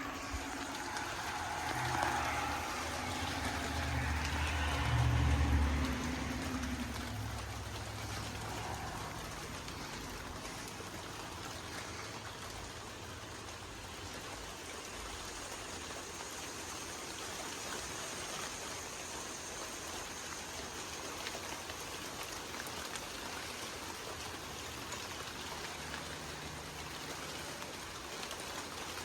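Rain falling steadily as a hiss of raindrops, with a louder low rumble during the first six seconds before it settles to an even patter.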